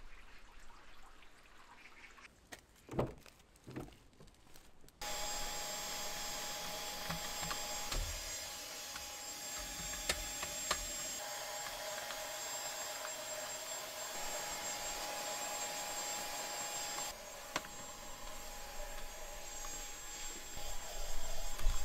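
Dyson Digital Slim cordless vacuum switching on about five seconds in and running steadily with a high motor whine while cleaning a car's interior. Before it, a couple of soft thumps; near the end, louder knocks as the nozzle bumps against the car.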